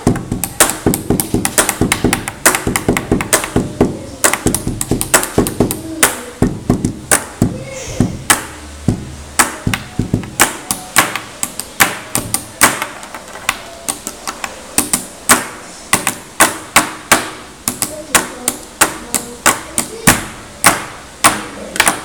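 Pen drumming: two pens struck on a tabletop in a fast rhythmic beat, sharp taps and knocks several a second with louder accented hits.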